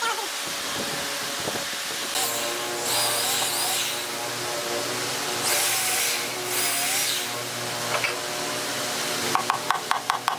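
An electric power tool cutting wood: the motor runs with a steady hum and makes two louder cutting passes. Near the end comes a quick run of evenly spaced clicks.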